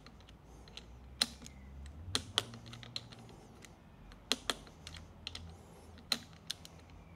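Click-type torque wrench on the lower triple clamp bolts of a 2020 KTM EXC-F fork, giving a series of sharp clicks about a second apart, some in pairs. Each click is the wrench signalling that a bolt has reached its set torque of 15 newton meters as the bolts are gone over back and forth.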